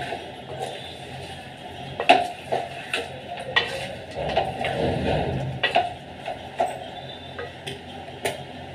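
Wooden spatula stirring chicken pieces with spices in a metal cooking pot, scraping along the bottom and knocking against the side every second or so, with a longer stretch of scraping about halfway through.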